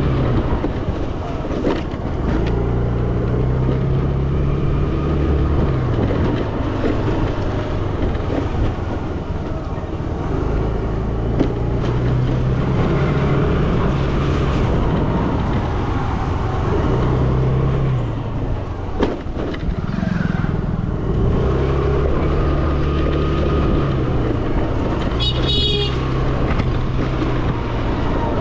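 Yamaha Fascino scooter's engine running while riding, its pitch rising and easing several times as the throttle opens and closes, over a steady rushing noise. A brief high-pitched sound cuts in about 25 seconds in.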